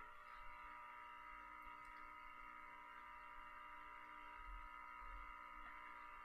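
Near silence: faint steady hum of room tone, holding several constant tones.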